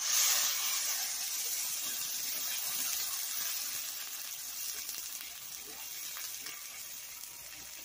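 Water poured into a hot pan of sautéed rice and vegetables, setting off a sudden loud sizzling hiss that gradually dies down as the rice is stirred.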